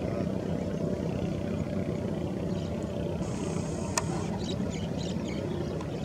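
Steady low engine drone with a constant hum, as of a motor running, with a sharp click about four seconds in followed by a few short high chirps.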